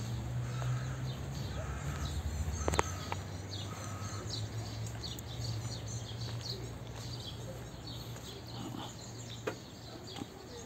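Small birds chirping throughout while a crow caws several times in the first few seconds, over a low steady hum that fades near the end. A single sharp click nearly three seconds in.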